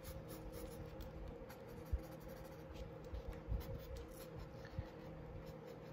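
Pencil scratching faintly across sketchbook paper in short sketching strokes, with a few soft low knocks of the hand against the pad, the loudest about two seconds in.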